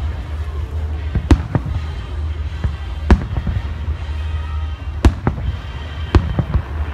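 Aerial firework shells bursting, a series of sharp booms at uneven intervals, the loudest about one, three and five seconds in, over a steady low rumble.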